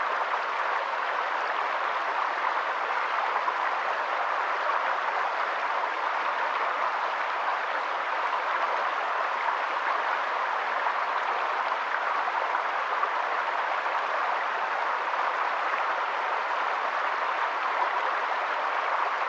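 Steady, even rushing of water, with no change in level.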